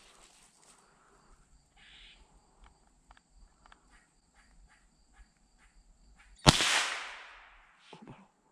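A single gunshot from a hunting gun about six and a half seconds in: a sharp crack with a tail that dies away over about half a second. Before it there are faint, scattered ticks. A couple of soft knocks come near the end.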